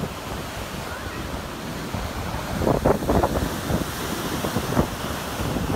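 Ocean surf breaking and washing in, with wind buffeting the microphone; a louder, rougher stretch comes about three seconds in.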